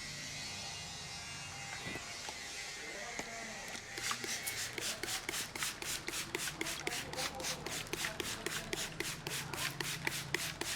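A barber's hands rubbing through a customer's hair and scalp in a head massage: a steady rubbing hiss, then from about four seconds in fast, even rubbing strokes, about four or five a second.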